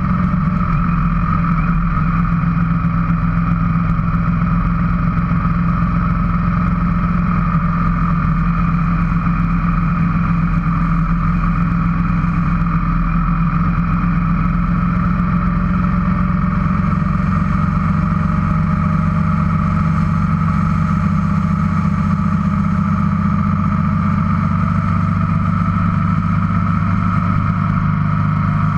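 Motorcycle cruising at a steady speed, heard from a camera mounted on the bike: the engine runs at an even pitch.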